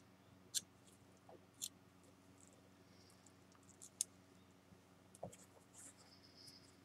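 A few faint, sharp clicks and light taps of a metal spatula and small tools against a glass work plate, spread a second or so apart, over near silence.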